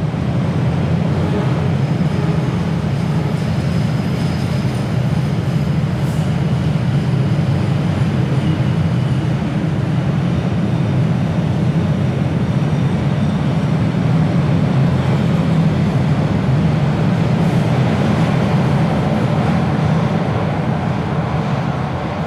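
MBTA Red Line subway train running along the platform: a steady, loud rumble of wheels and motors on the rails, easing slightly near the end as the train clears the station.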